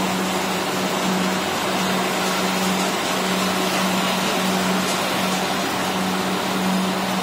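Popcorn machine's rotating perforated stainless-steel drum running: a steady electric-motor hum with a broad whirring noise over it, the hum wavering slightly in strength.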